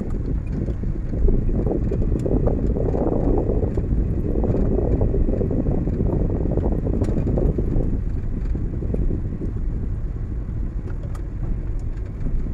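Car driving, heard from inside the cabin: a steady rumble of engine and road noise from a 2013 Chevrolet Aveo.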